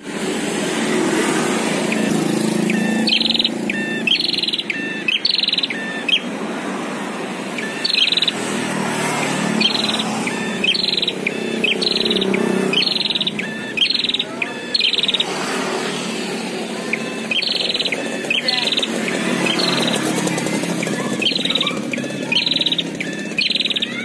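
Prinia (prenjak) calling: a sharp, repeated note given about once or twice a second, pausing for a couple of seconds about two-thirds of the way through and then resuming. It is a rival call between caged and wild birds, over a steady low background noise.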